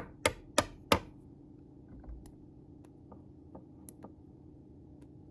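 Small parts of a disassembled Ontario RAT 1 folding knife clicking as they are handled: four sharp clicks in quick succession in the first second, then a few faint ticks.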